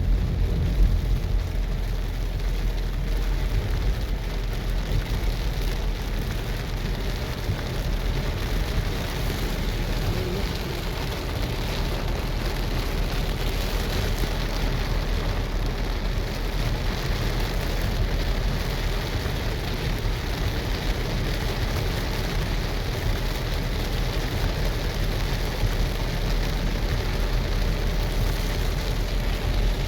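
Steady, nearly heavy rain falling, an even hiss with a low rumble underneath.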